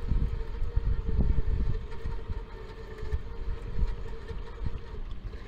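Tow truck winch pulling on its cable, a steady whine over a low rumble, stopping about five seconds in.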